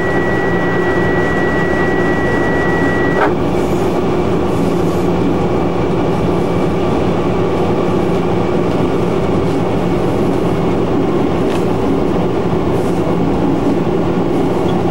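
Diesel locomotive running along the main line, heard from on board: a steady engine drone over rail and wheel noise. A thin high whine cuts off with a click about three seconds in.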